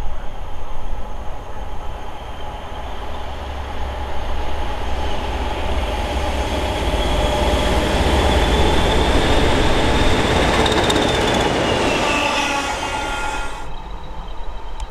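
Two coupled Class 20 diesel locomotives, with English Electric 8SVT V8 engines, running through close by: a low engine rumble builds to a peak as they pass and then fades. A high whistle rises and then drops in pitch as they go by. The sound cuts off suddenly near the end.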